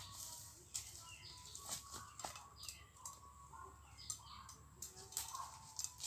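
Footsteps crunching through dry leaf litter, a scatter of irregular crackles, with faint short bird calls here and there.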